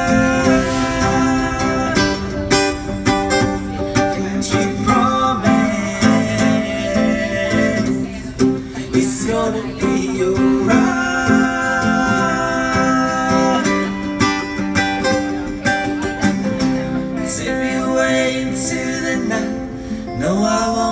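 Acoustic guitar being played live with voices singing over it.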